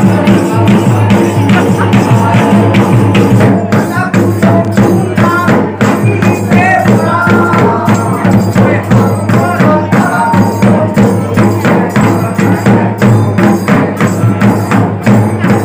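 Live folk dance music: double-headed barrel drums beaten in a fast, even rhythm of about three to four strokes a second, with a voice singing over them in the middle.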